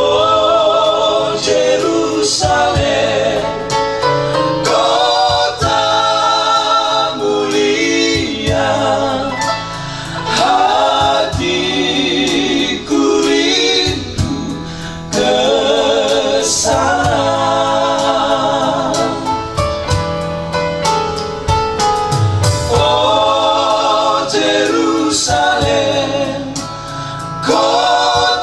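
Three men singing a Christian song together into one microphone, their voices wavering with vibrato, over an electronic keyboard accompaniment.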